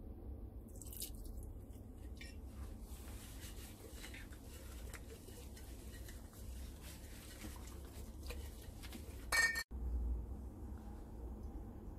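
Gloved hands rubbing wine into a raw whole chicken in a stainless steel bowl: faint wet handling with light clinks as the bird and hands knock against the metal bowl, and one louder clink about three-quarters of the way through.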